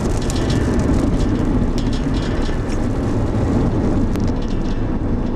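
Steady engine and road rumble inside a moving car, with scattered raindrops ticking on the windshield.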